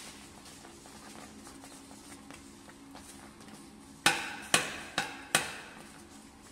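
Metal spoon stirring thick halwa in a frying pan, with faint scrapes, then four sharp knocks in quick succession about four seconds in, about half a second apart, as the spoon strikes the pan.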